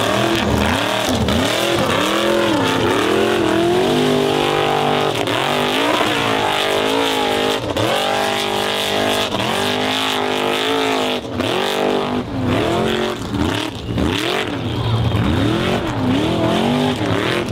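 Formula Offroad 4x4 competition car's engine revving hard, rising and falling in pitch about once a second as the throttle is worked on the climb, with a stretch of steady high revs in the middle.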